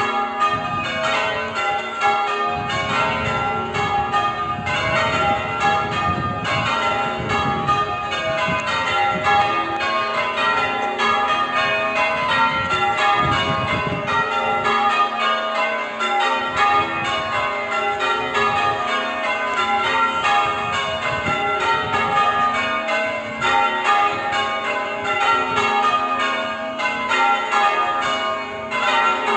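Church tower bells being change-rung: the ring of bells strikes one after another in a continuous, even sequence.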